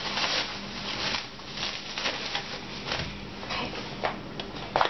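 Plastic cling film rustling as it is handled and peeled off a ball of rested pastry dough, with a sharp knock near the end as the dough is set down on a glass chopping board.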